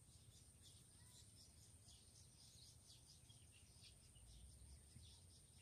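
Faint outdoor ambience near silence: quick high chirps repeating several times a second over a steady high-pitched whine, typical of birds and insects.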